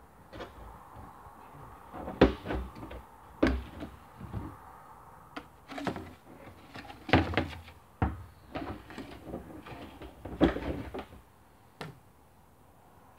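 Hollow plastic knocks, clunks and scrapes as black plastic downpipe sections and a water butt fitting are handled and pushed together: irregular knocks, the loudest about two, seven and ten seconds in.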